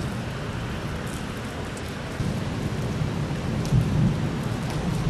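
Steady rain falling, with thunder rumbling low underneath; the rumble swells about two seconds in and is loudest near four seconds.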